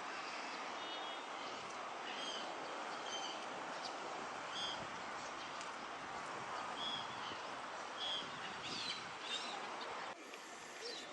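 Small birds chirping: short, separate calls every second or so over a steady background hiss, which drops abruptly about ten seconds in.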